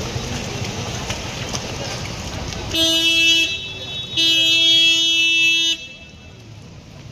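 Vehicle horn honking twice, a short toot about three seconds in, then a longer blast lasting about a second and a half. Both sound over a steady rushing background of floodwater and street noise.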